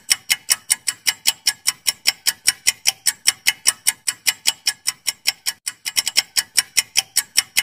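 Countdown-timer sound effect: a clock-like tick repeating evenly about five times a second, with a moment of quicker, doubled ticks about six seconds in.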